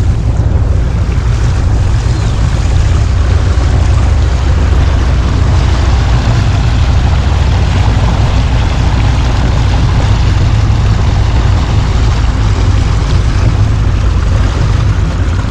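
Motorboat underway at a steady speed: a constant low engine rumble mixed with the rush of water and wind past the microphone.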